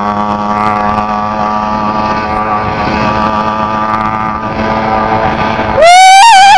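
The 80cc two-stroke engine of a motorized bicycle, fitted with a bare-pipe exhaust, running steadily at cruising speed. Near the end a loud, high, wavering shout cuts in over it.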